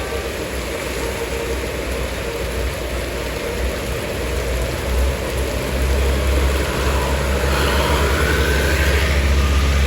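Passing road traffic, most likely a large bus approaching: its heavy engine running low under the hiss of tyres on the road, growing steadily louder, with a faint rising whine in the last couple of seconds.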